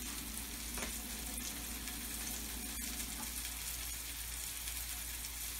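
Beef chuck roast searing in a hot pan with a steady sizzle and a few faint ticks, browning on its second side.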